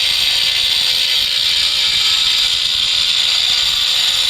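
Angle grinder's cutting disc cutting through a steel Unistrut strut channel: a loud, steady, high-pitched grinding over a constant motor whine.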